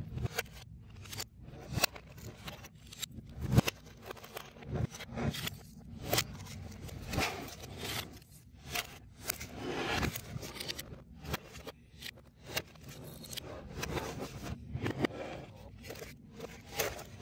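Pieces of a CubicFun 3D foam-board puzzle being handled and fitted: irregular scraping and rustling with light clicks and taps as parts are slotted together and picked from a pile.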